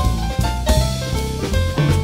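Jazz trio of stage piano, upright double bass and drum kit playing a swing tune: piano chords and melody over a walking bass, with cymbal and drum strokes.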